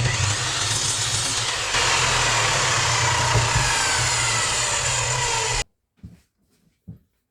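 An electric power saw running and cutting wood: a loud, steady motor noise with a low hum that stops abruptly about five and a half seconds in. A few faint knocks follow.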